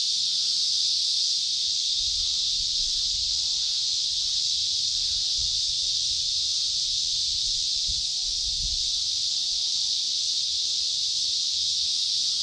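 Insect chorus droning steadily and high-pitched, with a few faint low rumbles.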